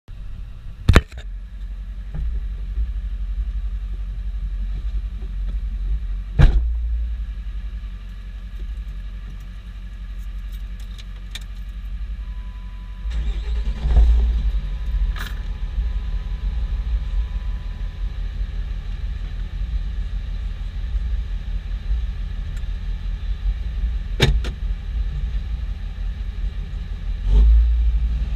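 A 5.9 L Cummins inline-six turbo-diesel idling, heard from inside the cab, with a steady low rumble that gets louder about halfway through. A steady electronic chime sounds for several seconds around the middle, and a few sharp knocks come early and near the end.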